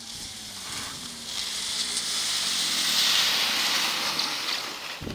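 Taiga Nomad electric snowmobile's track churning through wet, heavy snow, making a hiss of spraying snow that swells to a peak about three seconds in and then fades.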